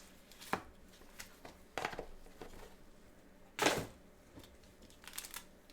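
Trading card packaging and cards being handled: a few short rustling scrapes, the loudest about three and a half seconds in, with a quick flurry near the end.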